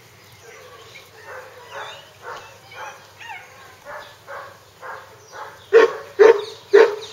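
Hungarian Vizsla puppies yapping in short calls about twice a second, then three loud barks in quick succession near the end.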